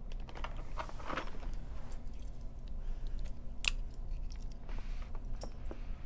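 Scissors snipping at the tape seal of a cardboard LEGO box while the box is handled: light scattered rustles and clicks, with one sharp click a little over halfway through.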